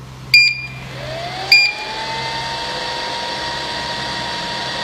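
3D sublimation vacuum machine starting up: two short electronic beeps from its control, then its motor spins up with a rising whine that levels off into a steady run.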